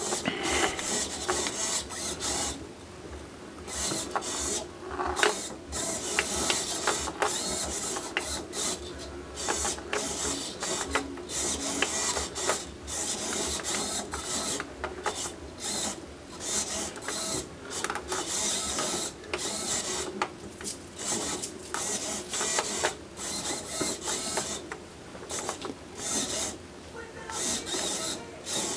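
Small hobby servos whirring in short stop-start bursts as they tilt a wooden labyrinth board back and forth under joystick control.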